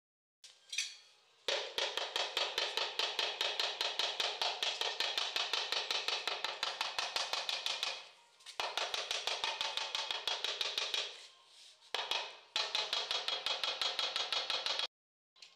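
Rapid, even tapping of a mallet on a ceramic wall tile, several taps a second, bedding the tile into its mortar. The taps come in three runs with short pauses between them.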